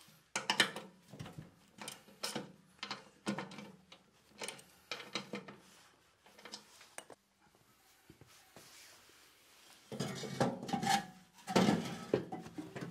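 Hand socket ratchet clicking in short strokes as the bolts of a new flange bearing housing are tightened on a snowblower's sheet-metal housing. Near the end there is a denser run of metal knocks and clatter as parts inside the housing are handled.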